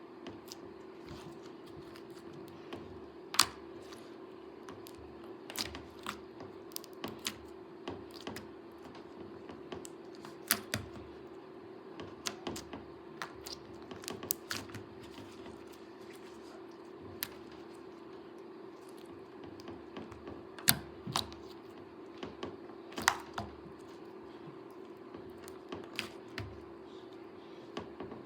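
Slime being squeezed and poked by hand, giving irregular sharp clicks and pops over a steady low hum.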